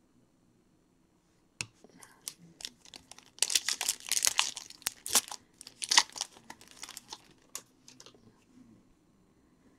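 Trading card pack wrapper being torn open and crinkled by hand: a sharp tick, then two bouts of loud crinkling and tearing that taper off near the end.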